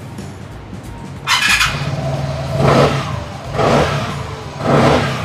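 Fuel-injected single-cylinder four-stroke engine of a Vespa Matic scooter: a short burst about a second in as it catches, then it idles and is revved three times, each rev rising and falling about a second apart.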